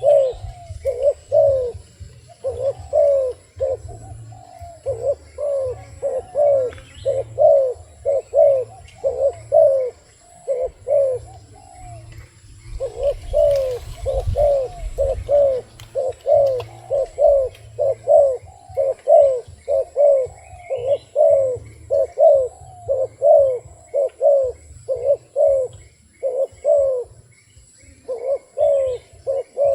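Dove cooing: short, down-curving coo notes repeated about twice a second in long runs, broken by brief pauses twice.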